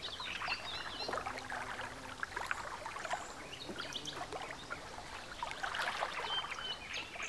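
Light natural water sounds among reeds: small irregular splashes, drips and ticks, with no steady rhythm.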